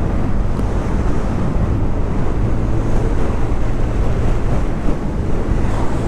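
Wind buffeting the microphone of a rider on a 125 cc scooter at road speed, a steady rushing noise with the low, even hum of the engine beneath it.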